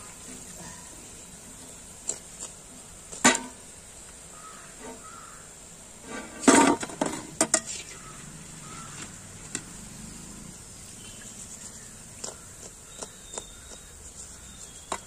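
A perforated metal skimmer clinking and scraping against a wide metal frying pan and a metal plate as urad dal vadas are scooped out, over a steady hiss of oil frying. The clinks come singly a few seconds apart, with the loudest clatter about halfway through.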